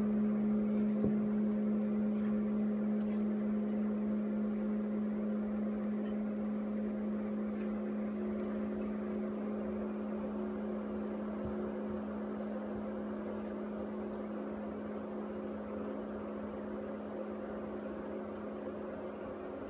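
Steady low electrical or motor hum with one strong tone and a fainter higher one over a soft whir, slowly fading, with a few faint clicks about six and twelve seconds in.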